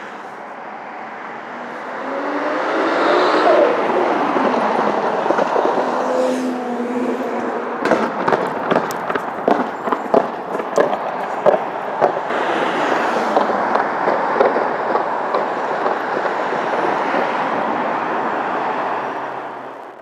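Twin-turbo RB26 straight-six of a tuned Nissan R34 GT-R accelerating, its pitch rising a couple of seconds in. About eight seconds in comes a run of sharp exhaust pops and bangs lasting several seconds, the kind that come with flames out of the exhaust. The engine then keeps running under a steady rush before fading out at the end.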